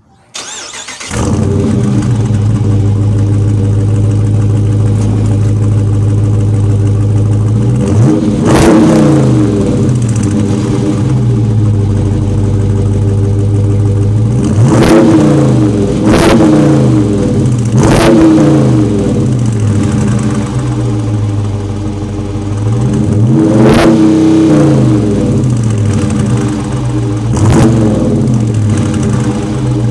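2021 Dodge Charger R/T's 5.7-litre HEMI V8 heard at the exhaust tip: it starts about a second in and settles into a steady idle, then is revved about six times, each rev a quick rise and fall in pitch back to idle.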